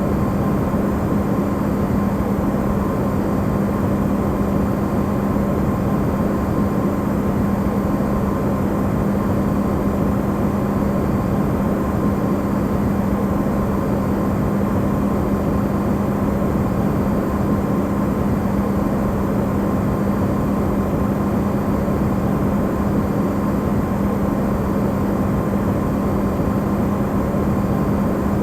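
Electrolux refrigerator running, recorded amplified: a steady, unchanging hum with a strong low tone over an even noisy whir.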